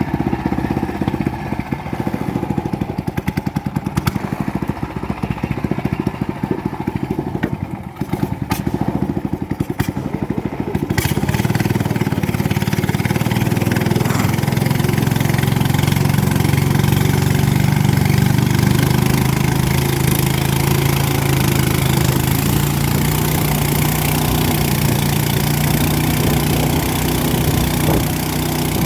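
A river boat's engine running slowly with a rapid low chug, then opening up about eleven seconds in to a louder, steady run.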